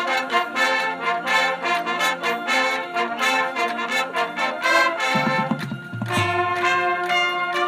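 High school marching band brass playing its field show: short, rhythmic chords, then low brass coming in and long held chords from about six seconds in.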